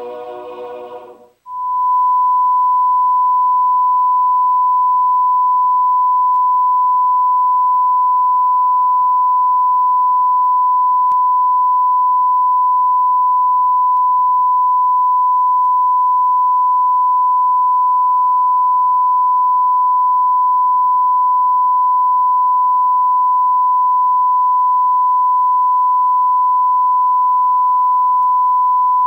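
A broadcast sign-off's closing music ends about a second in. After a brief drop-out, the station's colour-bar reference test tone starts: a single steady, unbroken tone at one pitch.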